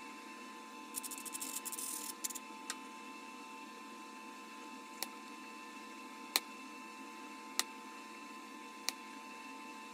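Sharp clicks of glass from a bottle being flintknapped. About a second in there is a second-long patch of rapid scraping clicks, then single crisp clicks about every 1.3 s as flakes snap off. A faint steady hum sits underneath.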